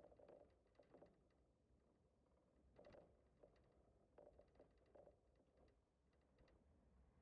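Near silence, with faint clusters of small clicks and rattles near the start, about three seconds in, and again around four to five seconds in.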